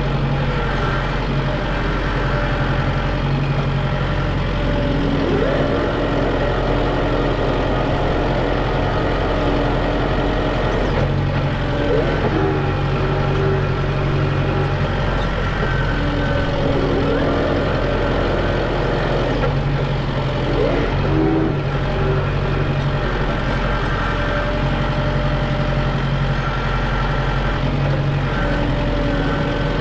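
Diesel engine running steadily under load. Its pitch rises and drops back several times as it is revved and eased off.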